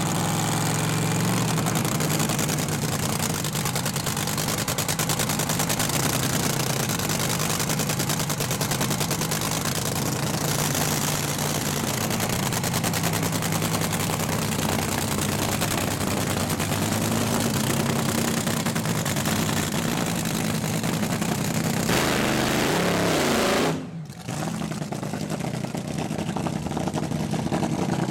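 Top Fuel dragster's supercharged nitromethane V8 running after its warm-up start: a loud, steady, rapid crackling rattle. About 23 seconds in it is revved up once, then the sound cuts off suddenly, and engine noise builds again toward the end.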